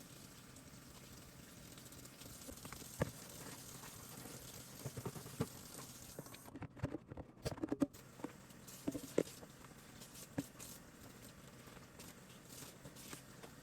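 Scattered light knocks, clicks and clatter of kitchen things being handled, over a faint hiss that cuts off about six and a half seconds in.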